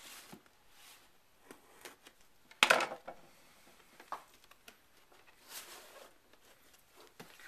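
Cardboard retail box being handled and slid out of its outer sleeve: light scrapes and rubs of cardboard, with one sharp knock about two and a half seconds in and a softer swish near six seconds.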